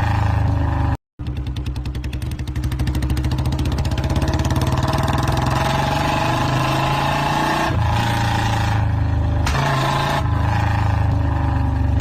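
Royal Enfield motorcycle engine running with an even, pulsing exhaust beat. The sound cuts out briefly about a second in and comes back, and the engine note shifts again later on.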